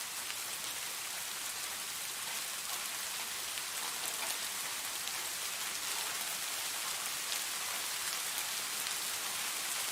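Steady rain falling: a dense, even hiss with scattered individual drops ticking through it.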